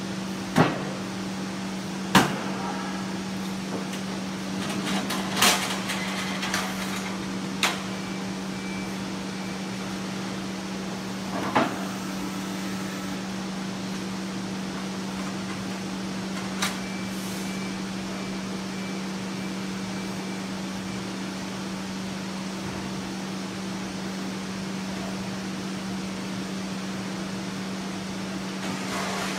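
Pallet inverter machinery with a steady hum, broken by about six sharp metallic clanks and knocks in the first seventeen seconds as the loaded pallet is handled into the machine.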